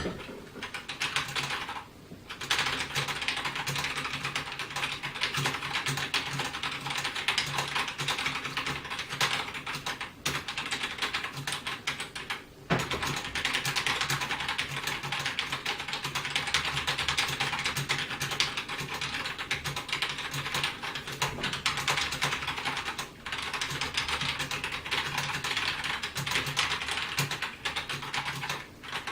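Continuous fast typing, a rapid clatter of keystrokes. It is on a mechanical keyboard with Gateron Brown tactile, non-clicky switches and on a membrane keyboard for comparison. The typing breaks off briefly about 2, 10, 12 and 23 seconds in.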